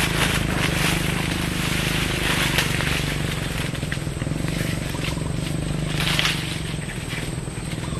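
A steady low hum like a distant motor, with two brief rustles of leaves and branches, one at the start and one about six seconds in.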